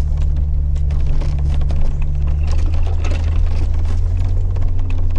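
Jeep Wrangler heard from inside the cab while driving a trail: a steady low engine and drivetrain drone, with scattered small knocks and rattles.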